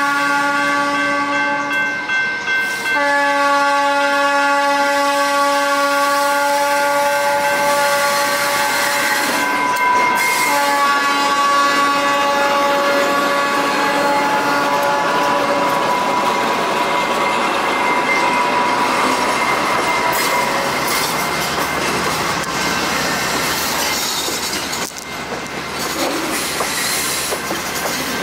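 Diesel switcher locomotive's air horn blowing in long blasts with short breaks through the first half, as it approaches a grade crossing. Then the locomotive and loaded tank cars roll past close by, wheels clicking over the rail joints.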